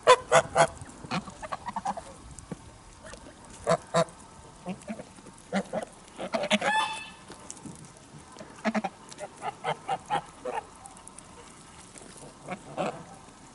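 Flock of white domestic geese honking in scattered short calls: a quick cluster at the start, one longer call about six and a half seconds in, and a run of short honks around nine to ten seconds.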